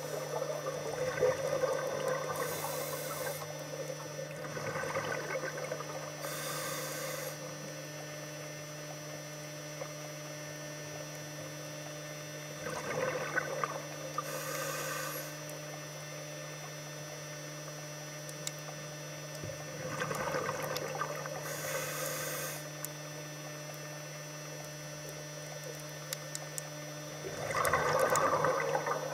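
Scuba diver breathing through a regulator underwater: slow breaths about seven seconds apart, each drawn in with a hiss and followed by a rush of exhaust bubbles, over a steady hum.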